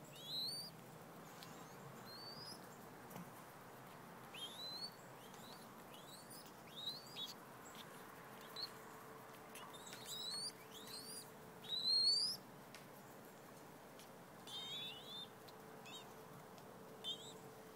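Mourning dove fledglings about three and a half weeks old giving short, high, rising begging cheeps, scattered irregularly and sometimes two or three in quick succession, loudest about twelve seconds in.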